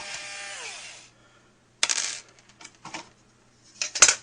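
Intro sound effect of small metal pieces clinking: a ringing that slides down in pitch and dies away about a second in, then a few scattered sharp clinks, the loudest pair near the end.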